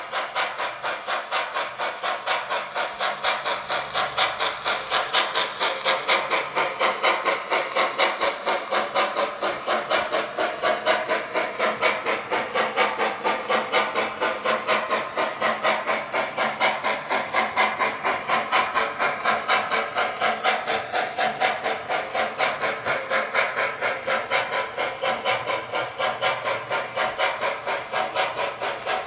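Bachmann J11 model steam locomotive's DCC sound decoder playing steady, rapid, evenly spaced exhaust chuffs through its small onboard speaker as the model runs.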